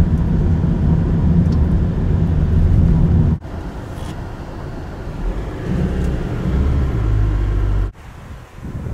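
Car running on the road, heard from inside the cabin as a steady low rumble of engine and tyre noise. It cuts off abruptly about a third of the way in and again near the end, where the recording switches between clips.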